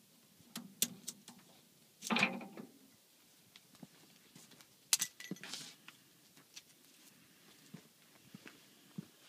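Metal clinks and rattles from a wing tie-down strap's buckle and hook being unhooked and handled: a few sharp clicks, a louder rattle about two seconds in, and another click and brief rattle about five seconds in.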